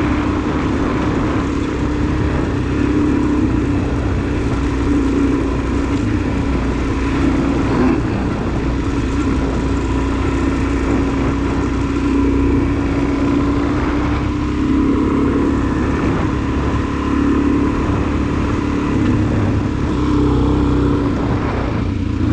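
Suzuki DR-Z400SM's single-cylinder four-stroke engine running under way at fairly steady revs, its pitch wavering a little, over a steady rush of wind and road noise.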